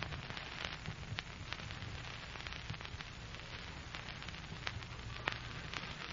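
Surface noise of an old radio-show recording: a steady hiss and crackle with scattered sharp clicks.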